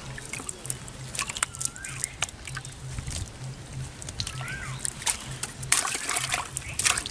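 Irregular splashing and sloshing of water as live fish, just picked from a cast net, are handled and dropped into a bucket of water. The splashes get louder and more frequent in the second half.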